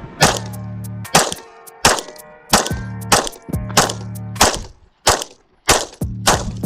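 9mm Glock 17 pistol firing about ten evenly paced shots, roughly one every two-thirds of a second, with music underneath.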